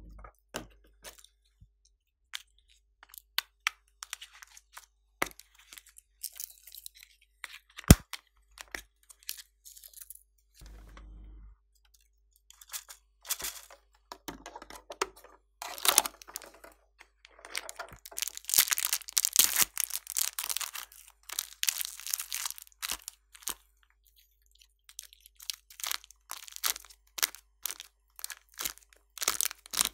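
Plastic toy cases being handled and opened, with scattered sharp clicks and one very sharp snap about eight seconds in. This gives way to dense crackling and crunching as soft pink clay is torn apart by hand, busiest in the middle and returning near the end.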